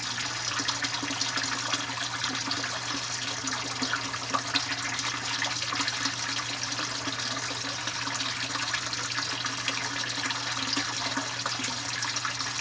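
Water pouring steadily out of a bell siphon's PVC elbow drain and splashing into an aquaponics fish tank: the siphon has just kicked in and is draining the grow bed. A steady low hum runs underneath.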